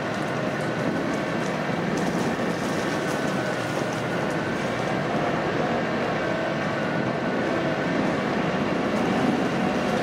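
Chevrolet Niva on the move: a steady rumble of engine and road noise with a faint wavering whine.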